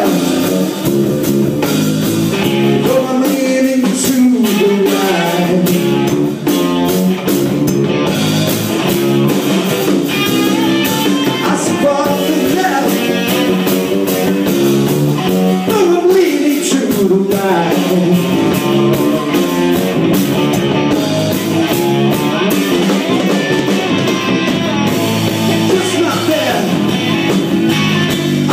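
Rock band playing a blues-rock song live, with a singer over guitar and drums.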